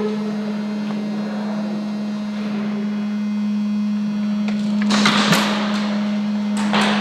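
Steady buzzing hum of the small anti-fog fan built into the airsoft goggles, right at the ear. Two brief bursts of noise break over it, about five seconds in and near the end.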